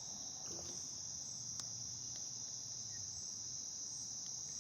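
Steady high-pitched insect chorus trilling without a break, with a faint click about a second and a half in.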